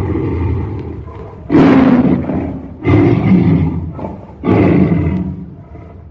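Tiger roaring repeatedly. One roar fades out, then three loud roars follow about a second and a half apart, each starting sharply and tailing off.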